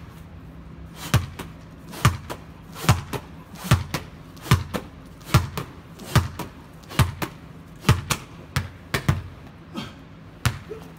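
A soccer ball slapped with both palms against a wall again and again in a steady rally, giving a sharp hollow smack roughly once a second.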